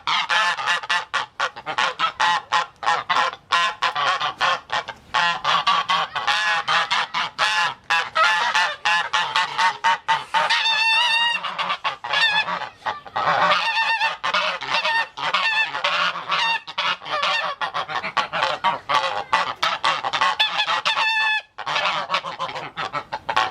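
Geese honking: a dense run of short, harsh calls following one another rapidly, with a couple of brief pauses midway.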